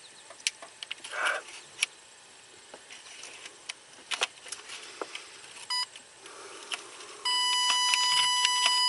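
Power Probe ECT2000 open/short locator's wireless probe beeping: one short beep, then about seven seconds in a steady high beep that holds, as it picks up the tracer signal on the wire. Before that, light clicks and rustling of hands handling the wiring harness.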